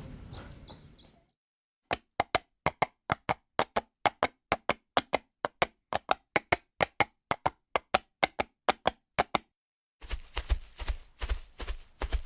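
Horse hoofbeats clip-clopping at a walk: a steady series of dry, sharp knocks, about three a second. About ten seconds in, a faster, heavier run of hoofbeats with low thuds begins.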